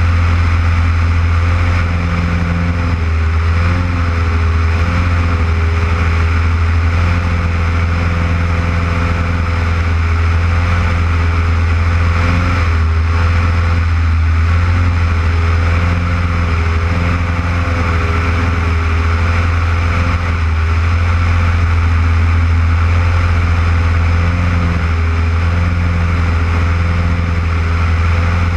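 Single-engine propeller aircraft in flight: the piston engine and propeller drone steadily with a slight waver in pitch, heard from a wing-mounted camera with the rush of airflow over it.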